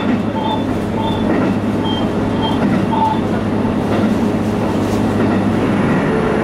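Inside a JR Hokkaido H100 "DECMO" diesel-electric railcar running along the line: a steady low drone from the car with the rumble of its wheels on the rails.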